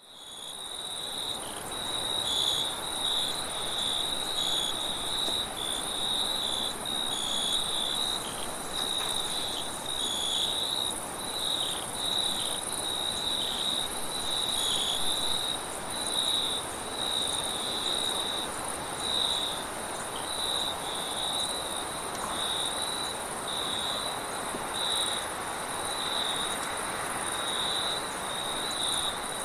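Crickets chirping in quick pulsing runs, with a thinner, higher steady insect trill above them, over a steady wind-like hiss. The sound fades in over the first couple of seconds.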